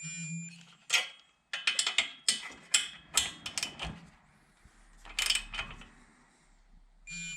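Snap-on digital torque wrench tightening cylinder stud nuts: a brief beep with a buzzing vibration as it hits the set torque of 16 foot-pounds, then a run of ratchet clicks as the wrench is swung back and set on the next nut, and a second beep and buzz near the end as that nut reaches torque.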